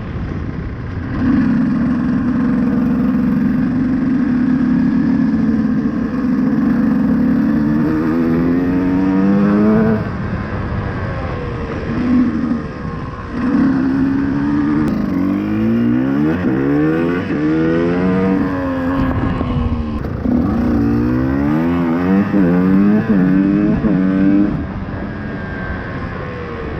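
KTM EXC 125 two-stroke single-cylinder engine ridden hard: it holds a steady high-revving note for several seconds, then revs up and drops again and again as the throttle is rolled on and off through the gears.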